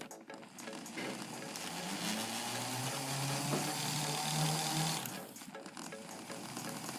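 Small electric motors of a Lego RC car (Power Functions M and L motors) whirring. The pitch rises about two seconds in as the motors speed up, holds, then drops away about five seconds in.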